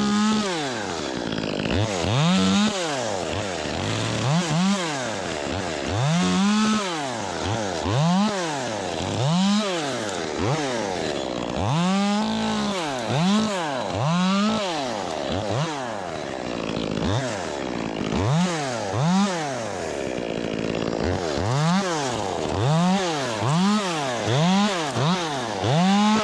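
Ported Echo 25T top-handle chainsaw revved up and back down over and over, about once a second, as it cuts small limbs: each burst rises in pitch and drops back to a lower pitch between cuts.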